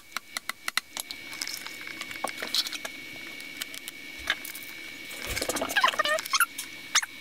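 A quick run of light taps in the first second, typical of a small hammer driving decorative upholstery brads through fabric into a footstool's wooden frame. This is followed by rustling handling noise and, near the end, a few short squeaky sweeping sounds that are the loudest part.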